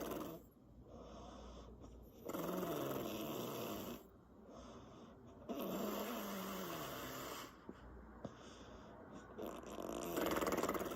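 A woman snoring with her lips flapping: loud rattling breaths come about every three and a half seconds, with quieter breaths between them.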